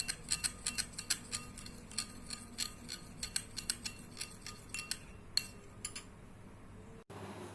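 A spoon stirring liquid in a small bowl, clinking against its side about three times a second in an uneven rhythm, each clink ringing briefly. The clinking dies away about six seconds in.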